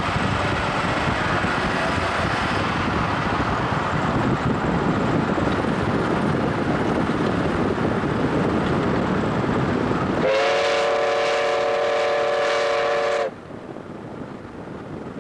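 Steam locomotive whistle sounding one long blast of about three seconds, about ten seconds in, then cutting off sharply. Before it, a steady rush of wind and road noise from the car running alongside the train.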